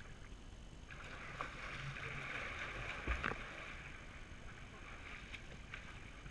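Swimming-pool water splashing and sloshing as people swim near the waterline, louder from about one to four seconds in, with a couple of small knocks.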